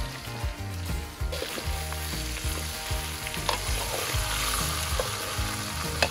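Bottle gourd pieces sizzling steadily as they fry in oil in a steel wok, with metal tongs clicking against the pan a few times, the sharpest click near the end.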